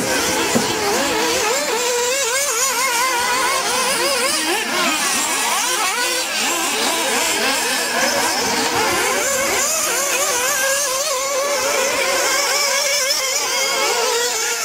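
Several 1/8-scale nitro RC buggies racing, their small two-stroke glow engines whining over one another, each pitch swooping up and down as the buggies accelerate and brake.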